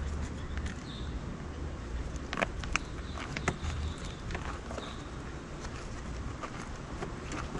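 Hands fitting a bag-style e-bike battery and its straps onto a bike frame: a few sharp clicks and taps, bunched between about two and three and a half seconds in, over a low steady rumble. A faint high chirp recurs every couple of seconds.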